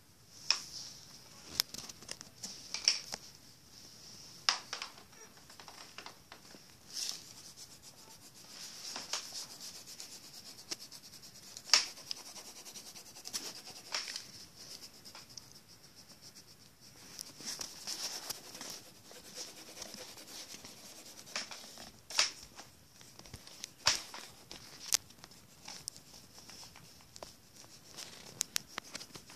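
Pencil scratching on paper in repeated strokes, heard close up, with many sharp taps and knocks scattered through.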